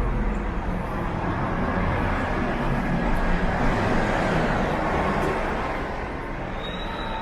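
City street traffic: cars driving past, the noise swelling a little about halfway through and then easing off.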